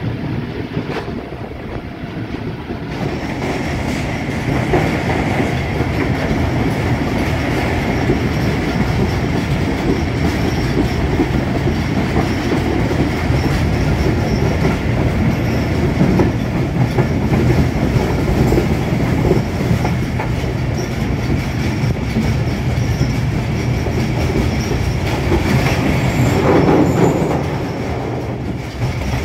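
Passenger train running along the track, heard from on board: the steady noise of the wheels on the rails and the coaches in motion, which gets louder about three seconds in.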